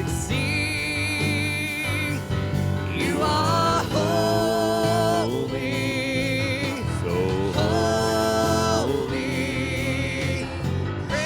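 Live praise-and-worship band music: a run of long held melody notes with vibrato over steady sustained chords.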